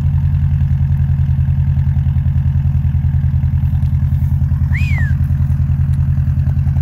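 Exhaust of a 1994 Subaru Legacy Turbo's EJ22T turbocharged flat-four idling cold with no revs: a steady, evenly pulsing low burble from the tailpipe. A brief high chirp falls in pitch about five seconds in.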